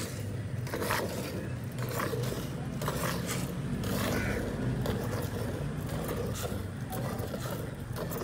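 Hand-milking a cow into a steel bucket of frothy milk: short spurts of milk squirting from the squeezed teats into the milk, roughly one a second, over a steady low hum.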